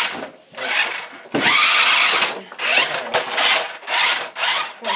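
Electric RC trucks revving in a series of short throttle bursts, a buzzing motor whine mixed with tires spinning and scrubbing on a tiled floor, about six surges in a row.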